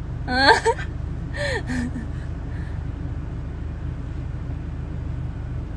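A woman's brief rising exclamation about half a second in, then a short falling call a second later, both with no words, over the steady low hum of a vehicle's cabin.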